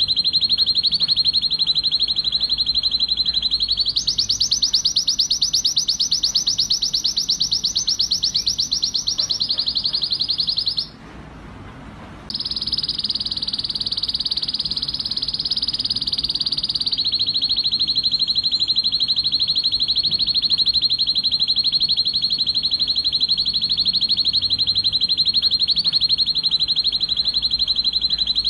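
Red-factor male canary singing loud, rapid trills: long rolls of quickly repeated notes, one after another, that shift to a higher, faster roll about four seconds in and stop for about a second near the middle before the song resumes. This is the excited breeding song of a male in full song.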